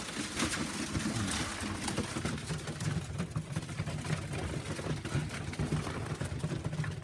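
Young racing pigeons dropping down into the loft: scattered small flutters and scuffs over a low, steady rumble.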